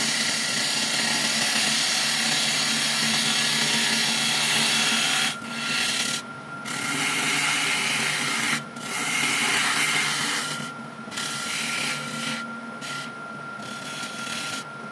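Turning tool cutting a large blank of monkey puzzle tree wood spinning on a lathe: a steady rough hiss of shavings being peeled off. In the second half the hiss breaks off several times for a moment as the tool lifts off the wood.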